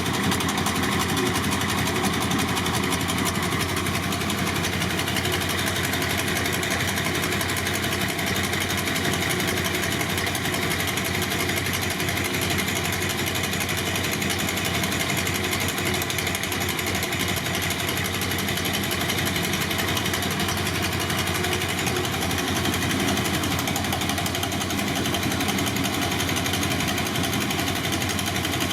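BMW R60/7's air-cooled flat-twin boxer engine running steadily, with no revving.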